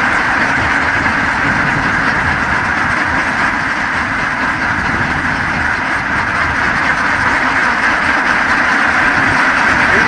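A very large flock of domestic ducks quacking together, their calls merging into a loud, steady din with no single call standing out.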